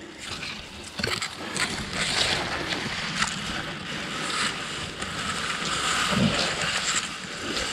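Leaves and branches rustling and scraping against the camera and pack as someone pushes through dense bush on foot, with a few sharp cracks of twigs.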